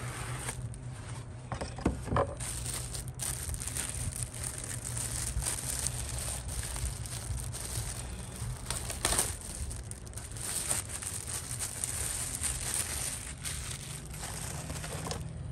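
Clear plastic wrapping crinkling and rustling as a new engine air filter is unwrapped from its bag, with cardboard box handling and a few knocks about two seconds in and again around nine seconds. A steady low hum runs underneath.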